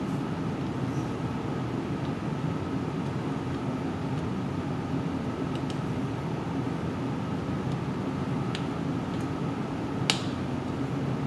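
Steady ventilation hum in a small room, with a few faint clicks and one sharper click about ten seconds in from handling a polarizing filter and its mount on an optical rail.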